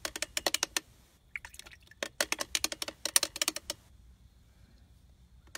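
Paintbrush being rattled and tapped against the inside of a water jar to clean it: quick clicking, about nine taps a second, in a short run at the start and a longer run of nearly two seconds in the middle.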